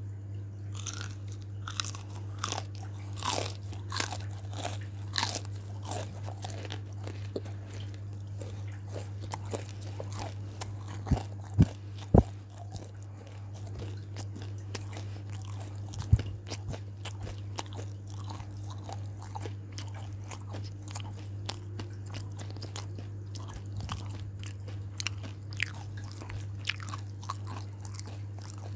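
Someone chewing crispy batter-fried food, crunching repeatedly, densest in the first several seconds and sparser afterwards, with a few sharper, louder clicks about halfway through. A low steady hum sits underneath.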